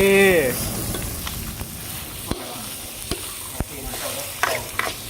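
Food sizzling in hot oil in a pan as it is stirred, with a few sharp knocks of the utensil against the pan.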